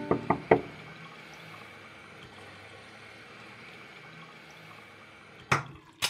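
Three quick sharp knocks, then a faint steady hiss of a bathroom tap running, and two more sharp knocks near the end.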